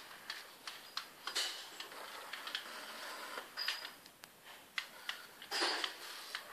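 Small plastic clicks and ticks, about two or three a second, unevenly spaced, with a couple of longer rustling bursts: the tail drive of a remote-controlled inflatable shark balloon swinging its tail.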